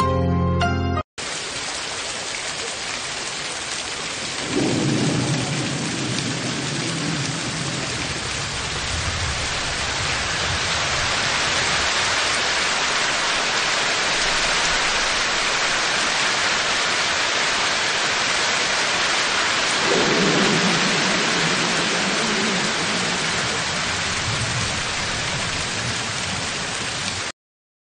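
Rain-and-thunder soundtrack: a steady hiss of heavy rain, with a roll of thunder about four seconds in and another about twenty seconds in. It cuts off abruptly near the end.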